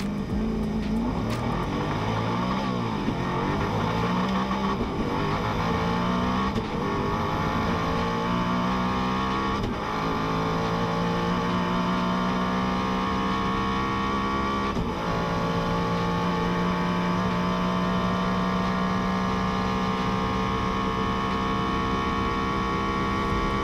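Koenigsegg Agera RS twin-turbo V8 heard inside the cabin, accelerating flat out from a standstill. The pitch climbs and drops back at each upshift, the shifts coming further apart as speed builds. From about 15 seconds in it pulls steadily in a high gear, pitch slowly rising.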